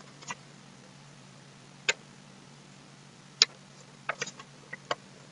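Computer mouse clicking: a handful of short, sharp clicks at uneven intervals, with a quick cluster about four seconds in, over a faint steady electrical hum.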